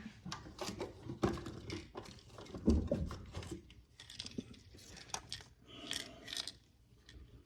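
Hands rummaging through small items in a toolbox drawer: a string of light clicks, taps and paper or cardboard rustling, with a slightly louder knock a little under three seconds in.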